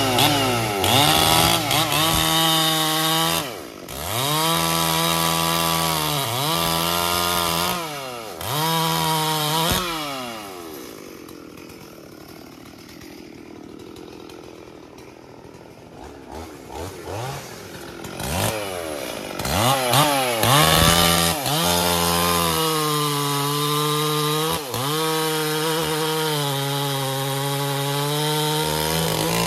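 Stihl MS 440 two-stroke chainsaw revved up and down repeatedly, dropping to a quieter idle for several seconds in the middle, then revving again and holding at high speed near the end.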